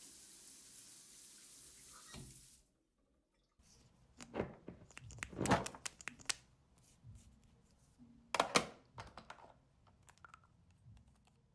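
Running water hissing steadily, cut off abruptly a few seconds in. After a second of silence come a string of knocks, clatters and rustles of small objects being handled and set down, the loudest about four and a half and eight and a half seconds in.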